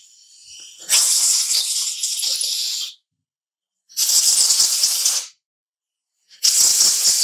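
Compressed-air blow gun blowing out the small fluid ports of hydraulic brake caliper parts: three hissing blasts of a second or two each, with short pauses between them.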